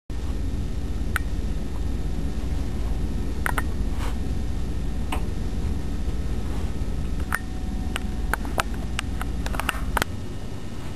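A run of sharp clicks and knocks, sparse at first and coming faster near the end, over a steady low hum that stops about ten seconds in.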